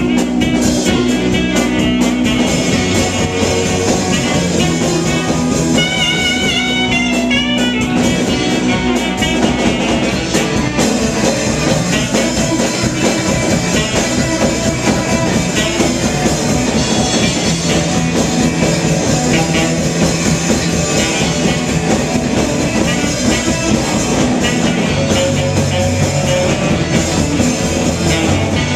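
Live rock band playing loud and continuous: electric guitar, electric bass, drum kit and saxophone. About six seconds in, a high lead line bends up and down in pitch for a couple of seconds.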